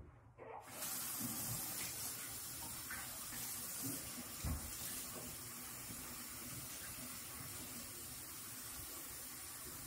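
Bathroom sink tap running, starting about a second in, as shampoo is rinsed out of hair held under it: a steady rush of water.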